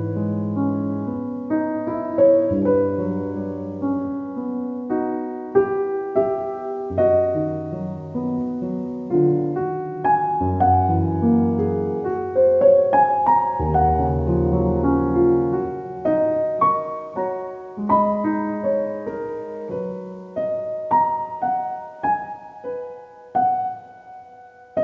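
Background piano music: single struck notes over held low chords.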